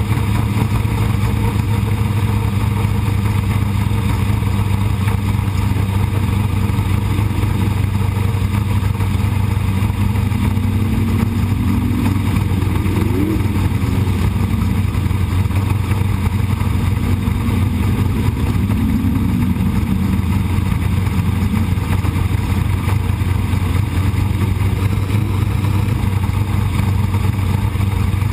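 Sprint car engine running steadily under the onboard camera, a loud continuous drone whose pitch rises and falls briefly twice in the middle.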